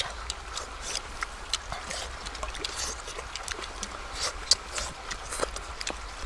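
People eating grilled fish by hand: a scatter of short, irregular lip smacks and chewing clicks.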